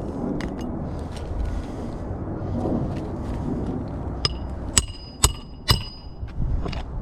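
Hammer striking metal during roof-shingle nailing: three sharp, ringing blows about half a second apart in the second half, after a stretch of soft scraping and light tapping.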